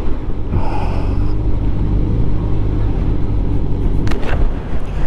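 Motorcycle engine running at steady road speed under wind rush on the helmet camera's microphone, with a short click about four seconds in.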